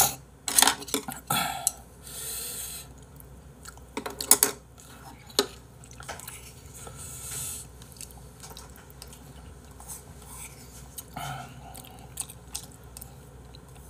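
Eating at the table: a spoon and chopsticks clink and knock against bowls, several sharp knocks in the first few seconds and a few more near the end, with chewing in between.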